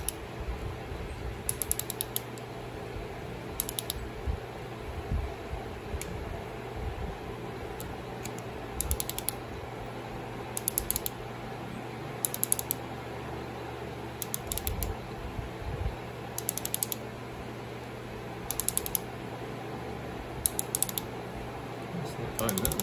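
Ratchet wrench clicking in short bursts of rapid clicks, about every two seconds, as the bolts of a transmission valve body are run down and torqued to 15 foot-pounds. A steady low hum runs underneath.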